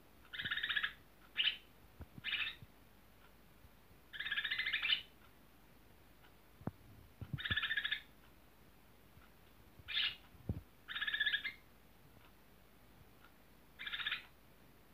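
Cucak ijo (greater green leafbird) singing in short chattering phrases, about eight bursts with pauses between them.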